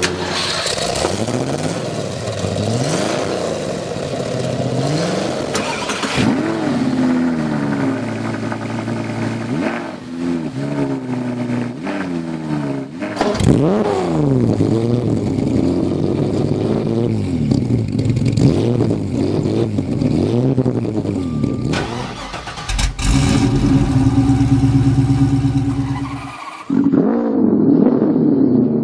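Several car engines revved one after another, with abrupt changes between them. First a 1971 De Tomaso Pantera's 5.8-litre V8 is blipped repeatedly, the pitch rising and falling with each rev. About halfway, a 1957 Jaguar XKSS's straight-six revs. Near the end, a 2007 Ferrari 599 GTB Fiorano's 6.0-litre V12 takes over.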